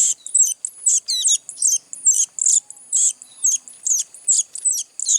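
Young sogon birds giving rapid, shrill chirps, about three a second, the begging calls of hand-fed fledglings.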